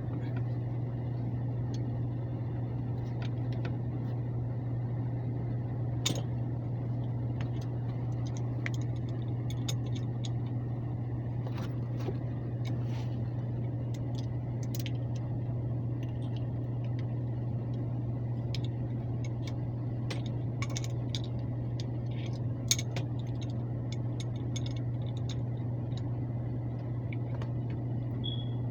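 Steady low hum of an air handler's blower running, with scattered light metallic clicks, taps and scrapes of tools and parts being handled.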